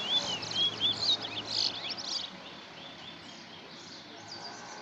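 Caged bullfinch singing a quick run of loud, high chirping notes that stops a little over two seconds in, with fainter song of the same kind carrying on after.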